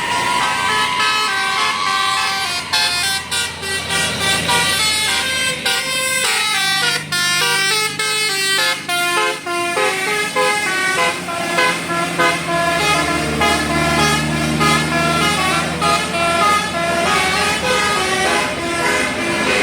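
A tour bus's 'telolet basuri' musical air horn playing a melody of short stepped notes, several pitches sounding together and changing a few times a second, over a low engine hum.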